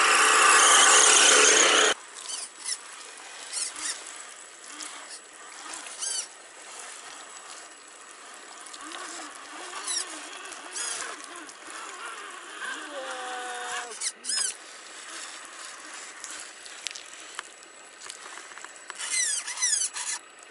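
Electric motor and gears of a radio-controlled scale off-road truck whining as it drives through mud. The whine is loud for the first two seconds, then fainter, with a brief pitched whine about thirteen seconds in.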